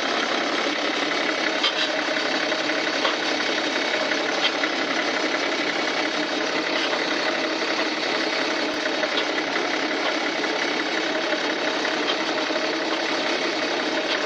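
BMW F10 suspension making a steady rapid clattering knock, with a few sharper knocks along the way: the knocking fault in the suspension.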